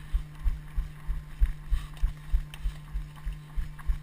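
Running footsteps, heard as deep, even thumps about three times a second, over a steady low hum.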